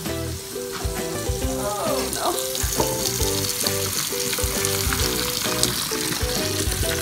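Hot pasta water pouring from a saucepan into a metal colander in a sink, a hiss that grows louder about three seconds in, over background music with a steady beat.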